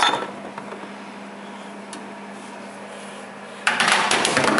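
A sharp knock, then a low steady hum. About three and a half seconds in, a loud, dense clattering rattle begins, as things at the open fridge are jostled and handled, and it runs on past the end.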